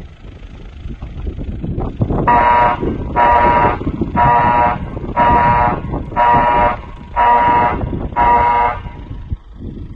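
Electronic alert siren ("Screamer") in telegraphy mode, sounding a steady-pitched tone in seven on-off beeps of about half a second each, roughly one a second, starting about two seconds in. A steady low rumbling noise runs underneath.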